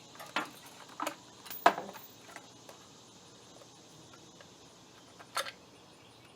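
Hand work on a pickup truck's headlight assembly: about five sharp clicks and light knocks of parts being handled, four in the first couple of seconds and one louder near the end.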